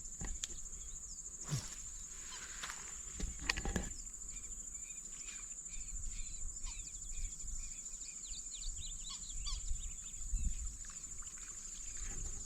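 Insects droning with a steady high-pitched whine, over many short bird chirps. A couple of soft knocks come in the first few seconds.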